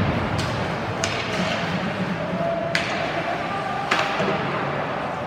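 Ice hockey play in a rink: about four sharp clacks of stick on puck, over a steady hiss of skates on the ice and the arena's background noise.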